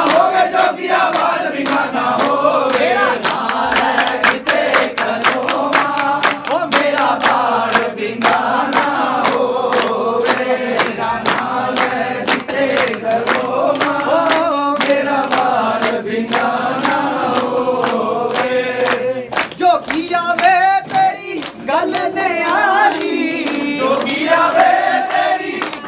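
A group of voices singing a Punjabi devotional bhajan together over a fast, steady percussive beat of about three to four strikes a second, which breaks briefly about twenty seconds in.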